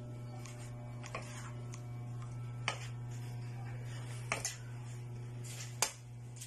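A cooking utensil knocking against a pan in sharp clacks, about five times spaced a second or more apart, over a steady low hum.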